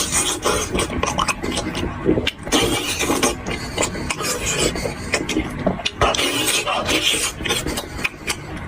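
Close-miked eating of sheep trotters: chewing and gnawing, with dense, irregular wet clicks and smacks.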